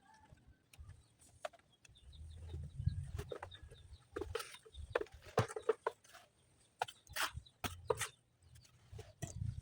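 Chickens clucking in a string of short calls, mixed with sharp knocks and a low rumble about two seconds in.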